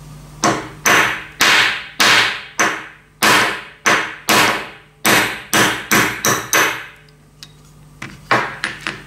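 Hammer blows on a punch, knocking the splined crankshaft out of a Taipan Tyro 1.9cc model diesel engine's crankcase. About fourteen sharp strikes, roughly two a second, each ringing briefly, then a pause and three quicker strikes near the end.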